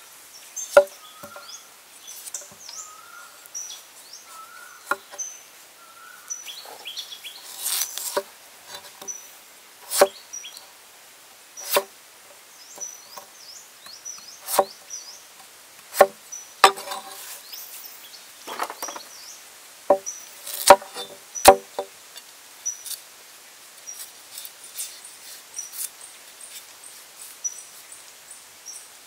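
A heavy cleaver chopping a potato on a wooden chopping board: single sharp chops a few seconds apart, some in quick pairs, with the later part quieter. Birds chirp in short repeated calls throughout.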